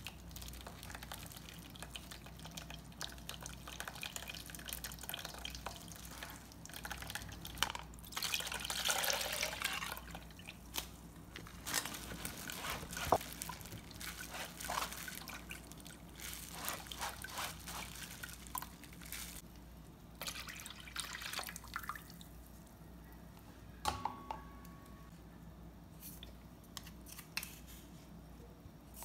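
Red chili seasoning liquid being pressed by hand through a fine metal mesh sieve into a stainless steel bowl: irregular dripping and trickling into the bowl with wet squishing, loudest for a couple of seconds about eight seconds in.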